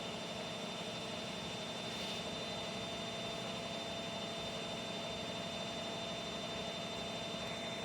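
Bosch washing machine running: a steady machine hum with a constant thin high tone above it.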